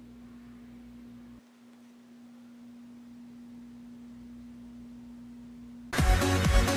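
A faint, steady hum at a single pitch. About six seconds in, loud music with a regular beat cuts in suddenly.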